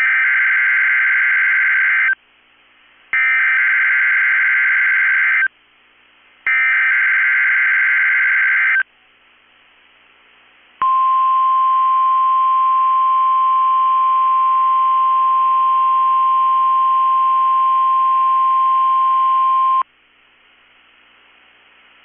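Emergency Alert System test on NOAA Weather Radio. Three SAME header bursts of data tones, each about two seconds with a short gap between, then the 1050 Hz warning alarm tone, held steady for about nine seconds and cut off abruptly.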